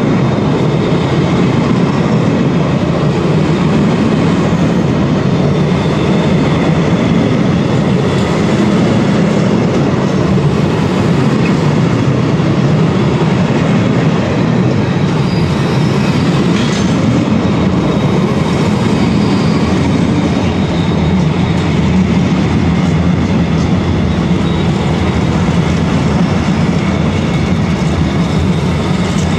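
Freight train of bogie tank wagons rolling past at close range: a steady, unbroken rumble of wheels running on the rails.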